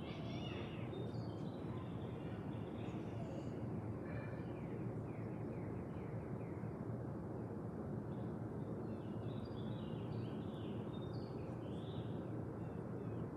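Steady outdoor background noise with birds chirping here and there, a cluster of chirps coming later on.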